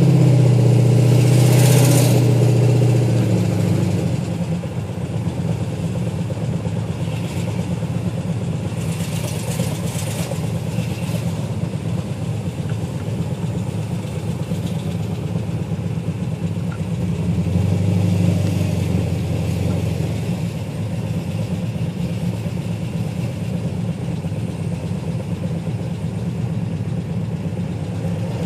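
GTO's engine running, revved a little at the start and then settling to an even idle with a small rise near the middle, with a tick that the owner thinks comes from a bad lifter.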